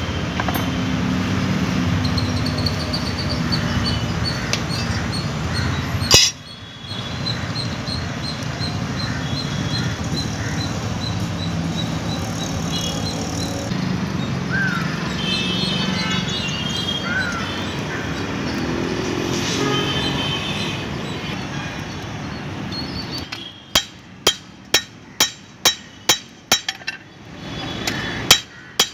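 Steady rushing of the coal forge's air blower as a meat cleaver heats in the fire. Near the end a hand hammer starts striking the hot steel cleaver on the anvil, about two sharp blows a second.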